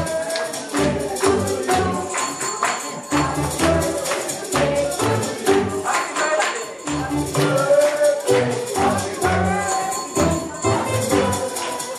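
Music with a steady percussive beat and a melody.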